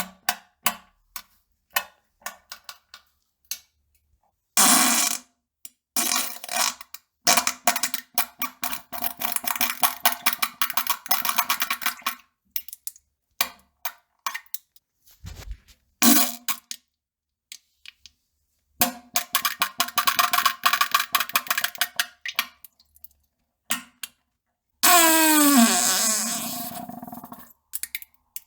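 A string of farts: short pops and sputters between several long sputtering ones lasting a few seconds each. A long one near the end slides down in pitch.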